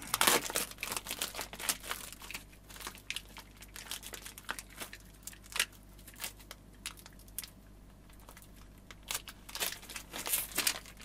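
Plastic packaging crinkling and rustling in irregular bursts as drum rack clamps are taken out and handled. The crinkling is busiest at the start and again shortly before the end.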